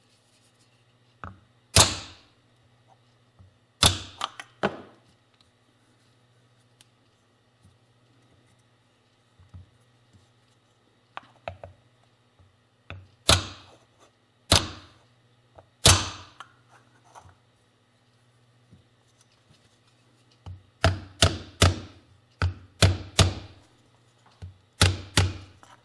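Soft-faced mallet striking a wooden block used as a driver to seat the left crankshaft oil seal into the aluminium engine case of a Yamaha YL1. At first single hard blows a second or two apart, then a quicker run of lighter taps near the end as the seal comes flush with the casting.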